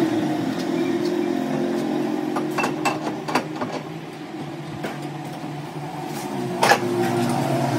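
Metal clinks and knocks as a steel gear shaft is fitted into a lathe's three-jaw chuck and the chuck key is turned, over a steady machine hum. A cluster of light clinks comes a few seconds in, and a single sharper clank follows near the end.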